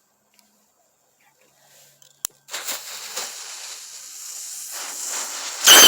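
Novelty ground firework shaped like a motorcycle, lit: a sharp click, then a hissing spray of sparks that grows louder and ends in a loud burst with a brief shrill ring near the end.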